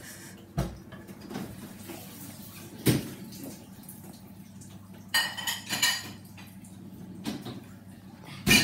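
Silicone spatula scraping out a stainless steel saucepan, the pan and spatula knocking a few times. A ringing metallic clink comes about five seconds in, and the loudest knock near the end.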